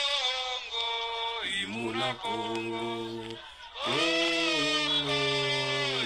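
A man's voice singing or chanting unaccompanied, holding a few long steady notes with short slides between them.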